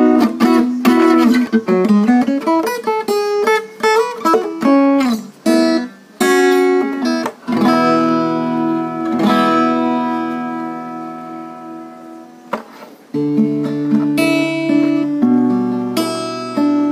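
Cowboy GWC-235 NS cutaway acoustic guitar played unplugged and picked up by a microphone: a quick single-note melody for several seconds, then a chord left to ring out and slowly fade, then strummed chords with bass notes in a steady rhythm near the end.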